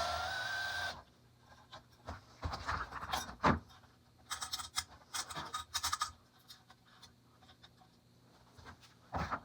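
A small power tool whirring, its pitch rising slightly, stops about a second in. It is followed by irregular scraping, rubbing and clicking of small parts being handled on a workbench.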